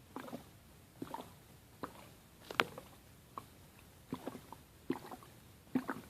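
A person hiccuping over and over: short, sharp catches in the throat, about one a second, with a louder one about halfway through.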